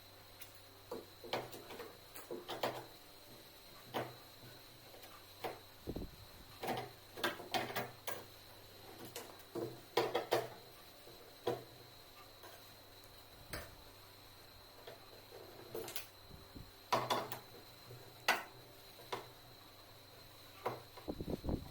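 Irregular clicks, taps and short scrapes of hand tools against metal and plastic parts as a washing machine is taken apart to get at its gearbox.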